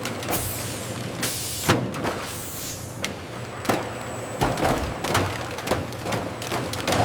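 Production-line machinery: a steady low hum with many irregular clicks and clanks, and a couple of bursts of air hiss in the first seconds.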